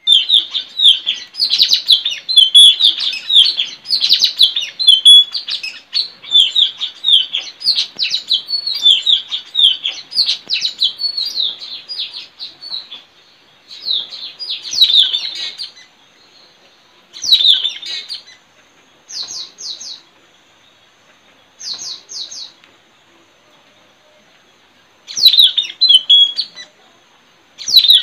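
Blue-rumped parrots (nuri tanau) calling: a rapid, nearly unbroken run of sharp, high chirping calls for the first dozen seconds, then shorter bursts separated by pauses. Around the middle come two brief, higher, fast-ticking trills.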